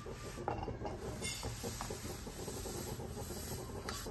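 Dry barnyard millet (sama rice) being swept by hand off a ceramic plate into a pan: a steady soft rubbing and sliding of fine grains with a few faint ticks.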